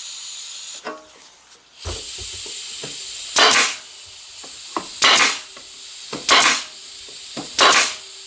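Pneumatic staple gun firing four times, each shot a sharp crack with a short rush of exhaust air, driving staples into the glued wooden sides of a beehive box. A small click comes just before each shot, and a steady hiss runs underneath.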